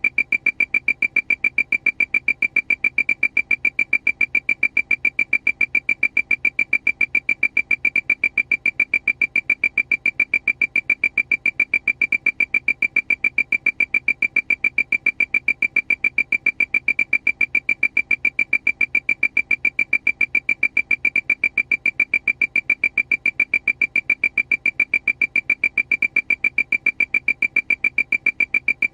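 Aircraft warning alarm: a high-pitched beep repeating rapidly and evenly, about four to five beeps a second, without a break.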